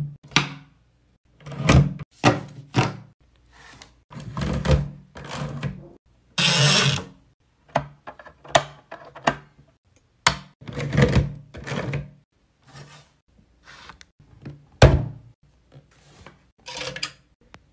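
Paper-crafting tools being worked on paper: a sliding paper trimmer cutting and binding hole punches pressing through sheets. The result is a string of separate clunks and thunks, with one longer hissing slice about six and a half seconds in.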